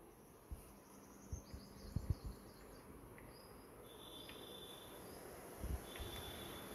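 Quiet ambience of a large hall: a faint hiss with high-pitched chirping tones, two longer ones in the second half, and a few soft low thumps.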